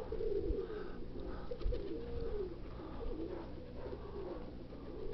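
Domestic pigeons cooing, one rising-and-falling coo after another.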